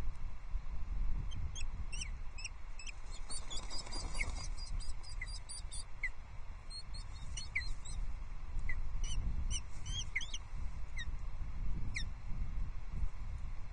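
Osprey calling: a series of short, high, downward-slurred whistled calls, coming in a quick cluster a few seconds in and then spaced out, over a low rumble of wind noise.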